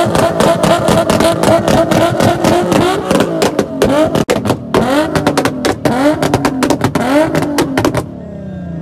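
A car engine held on a two-step launch limiter, its exhaust firing a rapid string of pops and bangs with flames. It holds one steady pitch at first, then revs up again and again in short rising sweeps, and the popping cuts off suddenly about eight seconds in as the revs fall away.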